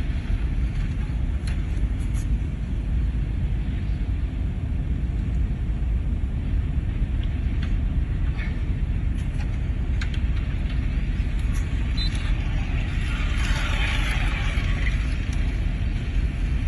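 Steady low rumble of a car cabin on the move, engine and road noise, with a few faint clicks and a short stretch of hiss near the end.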